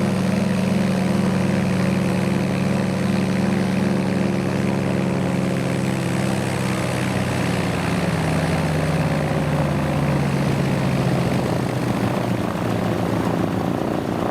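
Vintage piston aircraft engine running steadily with its propeller turning, its pitch settling slightly lower about halfway through.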